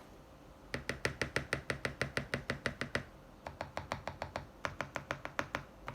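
Mechanical keyboard typing: Gateron Black Ink V2 linear switches, lubed and filmed, on a polycarbonate plate in a brass-weighted, foam-filled Tofu60 case. Quick runs of keystrokes at about eight a second, with a short pause less than a second in and another about three seconds in.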